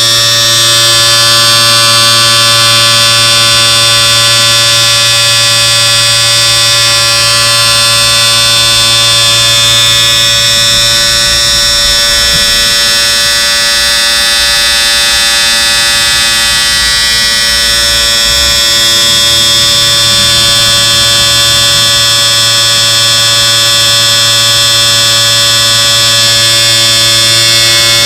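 Electric shaver running with a steady, even buzz.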